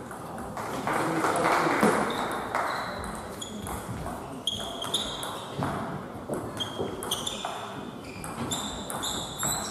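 Table tennis ball repeatedly pinging off the table and bats, a series of short sharp high-pitched clicks at uneven spacing, over crowd chatter echoing in a large hall.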